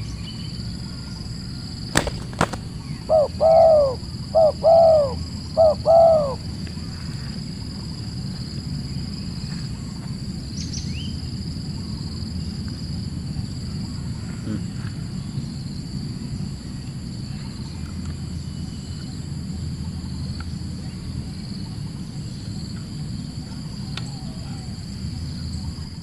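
Dove cooing: a run of short, arched coos in quick pairs from about three to six seconds in, preceded by two sharp clicks. A steady high insect drone and a low rumble run underneath.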